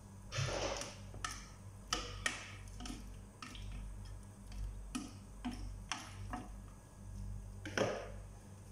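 Spoon knocking and scraping against a stainless steel pot while chicken feet are stirred: about ten irregular clicks and taps, over a low steady hum.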